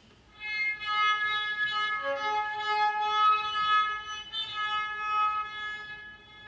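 Cello playing a sustained high bowed note in a slow contemporary duo for cello and baritone saxophone. It enters softly after a pause, holds, shifts about four seconds in, and fades away near the end.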